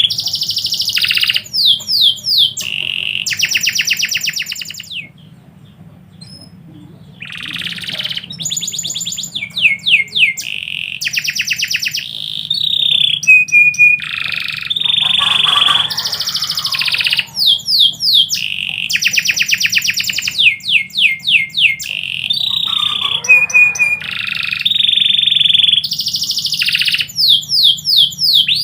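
Domestic canary singing: rapid trills and runs of fast repeated sweeping notes, with a short break about five seconds in. A faint steady low hum lies underneath.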